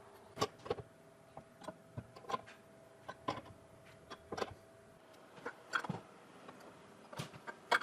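Sharp metal clicks and ticks at uneven spacing, roughly two a second, from a hand tap being turned with a wrench as pipe threads are cut into a coffee roaster's faceplate.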